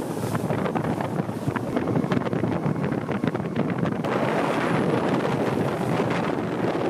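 Wind buffeting the microphone over the rush of water, recorded from a boat keeping pace with a foiling AC40 sailing yacht at speed; the noise thickens and turns hissier about four seconds in.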